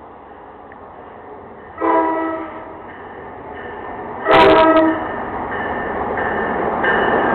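GE Genesis P42 diesel locomotive horn sounding two short blasts, about two and a half seconds apart, the second louder. Under the blasts the rumble of the oncoming train grows steadily louder as it pulls alongside.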